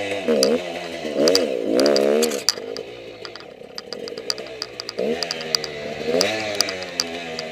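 Enduro motorcycle engine revving up and down in quick throttle bursts, easing to a lower, quieter running for a couple of seconds in the middle, then revving up again, with sharp clicks over it.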